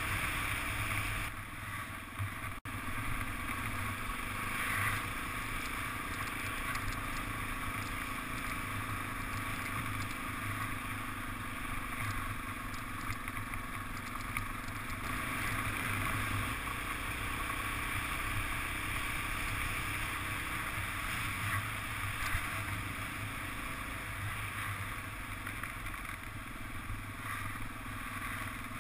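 Motorcycle engine running steadily while riding along a gravel road, with constant road noise from the tyres. The sound drops out for an instant about two and a half seconds in.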